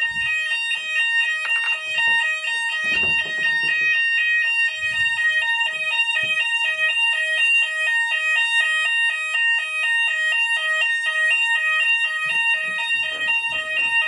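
Fire alarm sounders of a Hochiki ESP addressable fire alarm system sounding in alarm after a manual call point test. The sound is a loud, steady pattern of two tones alternating rapidly over a constant high tone, with a few soft handling bumps.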